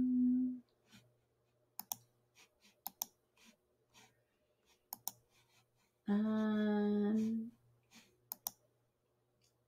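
Computer mouse clicking about a dozen times, several clicks in quick pairs. A woman's hum is held on one steady note for about a second and a half near the middle.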